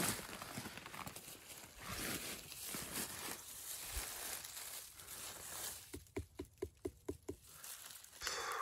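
Footsteps and rustling through undergrowth, with scattered clicks and crunches. About six seconds in comes a quick run of about eight short pitched calls, some five a second, from an animal.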